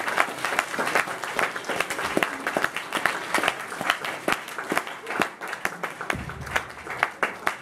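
Audience applauding, with one pair of hands clapping loudly close by over the rest; the applause thins a little near the end.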